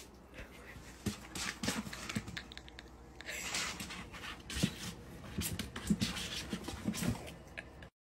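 Kitten scrabbling at a plastic jug: irregular scratching and clicking of claws on plastic, with a few soft knocks.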